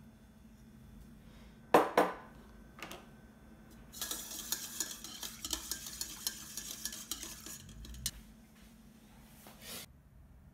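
A wire whisk beating a milky tea pudding mixture in a stainless steel mixing bowl: two sharp metal clinks about two seconds in, then fast clicking and scraping against the bowl for about four seconds.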